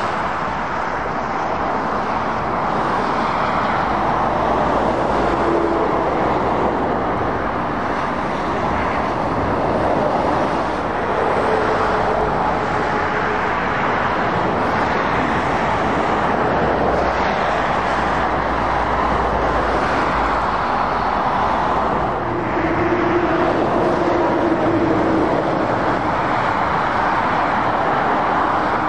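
Steady road traffic noise of lorries and cars driving past: continuous tyre noise with the low hum of heavy diesel trucks.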